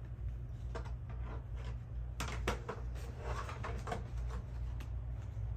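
Handling noises from the upright vacuum's bag compartment: a couple of sharp plastic clicks about two seconds in, then rustling as the bag is checked for use. A steady low hum lies underneath.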